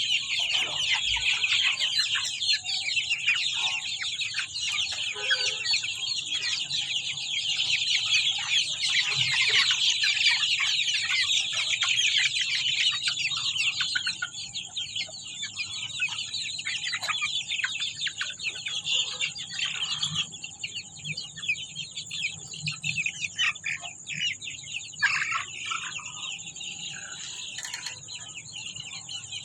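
Aseel chickens clucking and calling together in a dense, overlapping chatter that is loudest in the first half and thins out after about fourteen seconds, over a steady high hiss.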